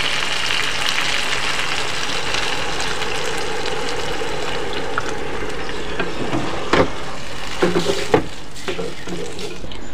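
Spiced spiny gourd and potatoes sizzling steadily in a hot non-stick pan as water is poured in for the gravy. Near the end, a spatula stirs and knocks against the pan a few times.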